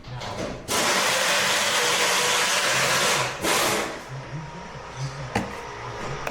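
A long hiss of air or spray lasting about two and a half seconds, then a second short burst, and a sharp click near the end.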